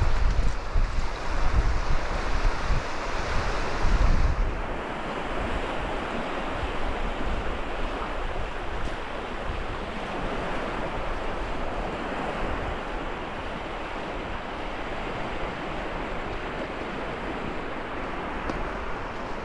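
Surf washing onto a beach, a steady hiss of waves. For the first four seconds or so wind buffets the microphone with a gusty rumble, then it settles to a steadier wash.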